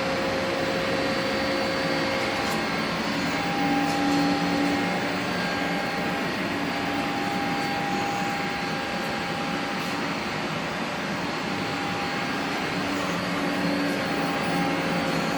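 Steady hum of running shop machinery, with a few held tones that come and go.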